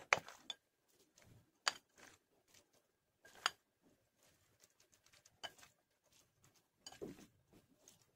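Serving utensils knocking and scraping against a glass bowl and glass serving plate as coleslaw is spooned out: about five separate sharp clicks spread over several seconds, with soft rustling of the shredded salad in between.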